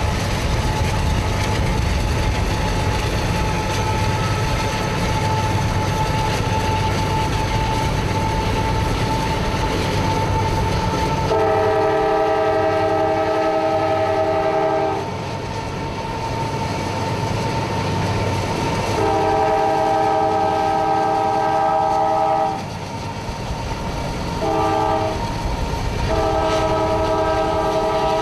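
A CSX freight locomotive's air horn blows the grade-crossing signal: two long blasts, a short one, then a final long one still sounding at the end. Before and under it is the steady rumble of the moving freight train.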